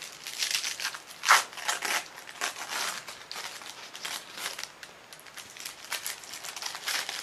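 Red paper wrapper of a pack of Chinese firecrackers being torn open and crinkled by hand: a run of short papery rips and crackles, the loudest about a second in.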